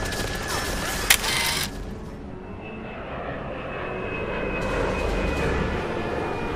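Jet plane engine running with a steady high whine over rushing noise, growing louder over a few seconds as the plane flies in. A sharp click comes about a second in.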